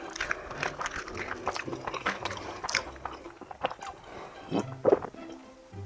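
Close-miked biting, crunching and chewing of crisp Korean fried chicken: a quick irregular run of crackles from the batter that thins out after about half the time, with a couple of louder crunches near the end.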